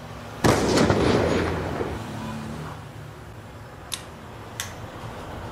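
Metal silencer insert (db killer) going into a motorcycle's aftermarket muffler can: a sudden metallic clatter about half a second in that trails off as a rattle over about two seconds, followed by two light clicks near the end.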